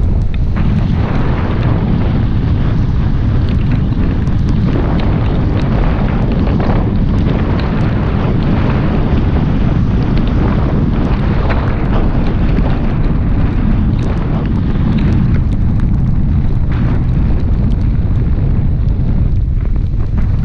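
Wind rumbling on the microphone of a camera riding on a moving Tata Altroz, over the noise of its tyres on a wet road, with scattered sharp ticks throughout.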